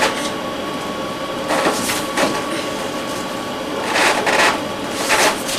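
Steady hiss with a faint electrical hum, broken a few times by brief soft rustles of book pages being handled.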